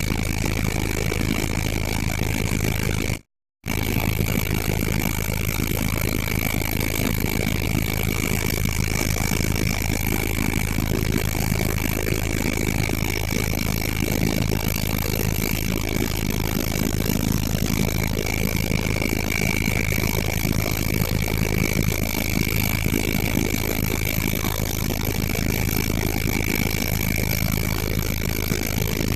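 Helicopter running steadily, a constant engine and rotor noise with a steady high-pitched whine over it. The sound cuts out briefly about three seconds in.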